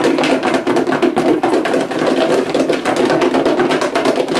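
Chicken nuggets in hot sauce rattling and knocking inside a plastic food container with its lid on, shaken hard by hand in a fast, steady rhythm to coat them.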